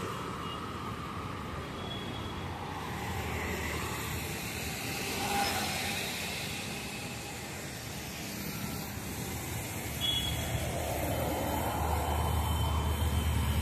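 Road traffic: motorbikes, scooters and cars passing on a busy city road. Near the end a bus passes close by, and its low engine rumble grows louder.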